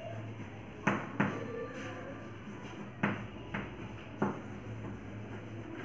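Chalk tapping and scraping on a blackboard while words are written, with about five sharp taps over a faint steady hum.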